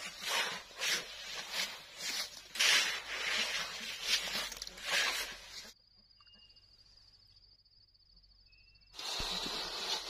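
Steel shovels scraping and slapping through a pile of wet concrete mix on bare ground, in repeated strokes about once a second. Near the middle this gives way to a quiet stretch with a steady high insect trill and two short high chirps. About a second before the end comes the gritty scrape of a wooden float smoothing fresh concrete.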